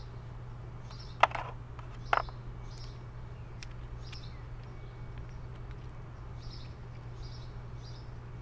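Two sharp clicks about a second apart, near the start, as the parts of a Quad Lock motorcycle phone mount are handled and taken apart. Faint, short high chirps repeat about once a second over a steady low hum.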